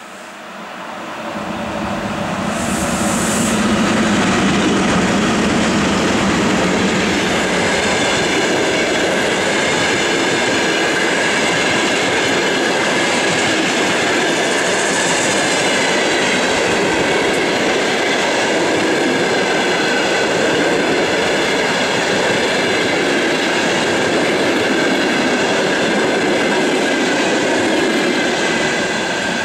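A 2ES4K two-section electric locomotive hauling a long passenger train passes close by. The sound swells over the first few seconds as the locomotive goes past. Then the coaches' wheels run steadily and loudly over the rails, with a faint high ringing tone above the rumble.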